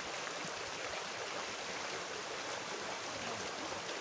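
Shallow rocky river rushing over stones: a steady wash of flowing water.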